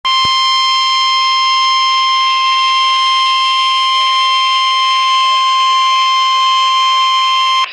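NOAA Weather Radio's 1050 Hz warning alarm tone: a single loud, steady, slightly buzzy beep held for about seven and a half seconds, then cut off abruptly. It is the signal that a warning message follows, here a severe thunderstorm warning.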